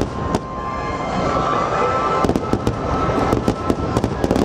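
Dense barrage of large aerial firework shells bursting: continuous rumbling booms overlaid with many sharp crackles, the crackling thickening in the last second and a half.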